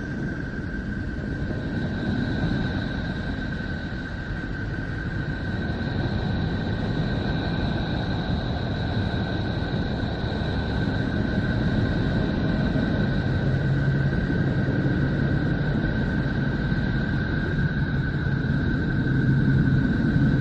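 The so-called sound of Neptune, a sonified space recording: a steady rumbling drone with two thin, high, unchanging tones over it. A low steady hum joins about two-thirds of the way through.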